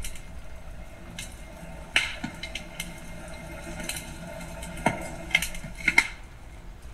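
Dishes and utensils being handled, with scattered light clinks and knocks, the sharpest about two seconds in and near six seconds in, over a steady faint background.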